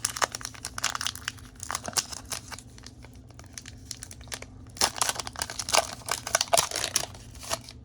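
Foil wrapper of a Pokémon TCG Darkness Ablaze booster pack crinkling as it is handled and torn open, with louder crackles about five to seven seconds in.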